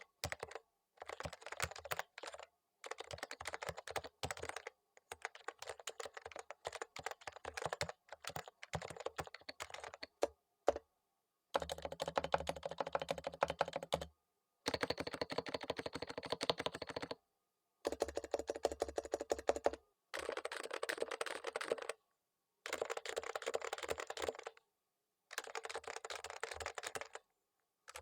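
Typing on a Topre Realforce R3 keyboard with Topre electrostatic capacitive key switches, set on a desk mat. Quick keystrokes come in runs of about two seconds with short pauses between them.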